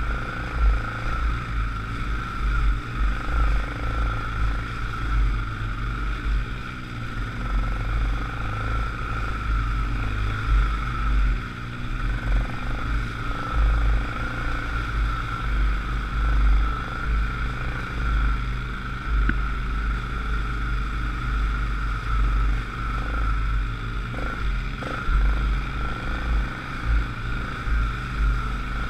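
ATV engine running steadily on a rough, rocky trail, with a constant high whine over a low, uneven rumble and a few brief knocks from the machine going over the ground.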